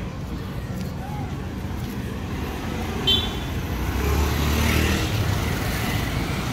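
Street traffic: steady motor rumble, with a motor vehicle passing close and louder from about four seconds in. A short high-pitched beep sounds about three seconds in.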